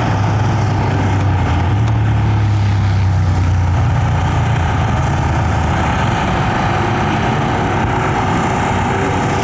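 A steady engine drone with a low hum and a constant higher whine over it, running evenly without revving.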